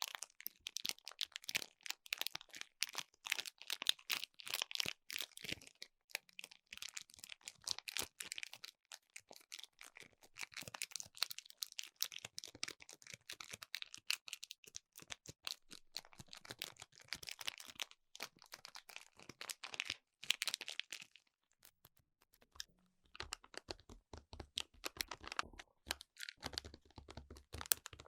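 Close-miked ASMR handling sounds: dense, rapid crackling and crinkling for about twenty seconds, then, after a short pause, sparser taps and clicks.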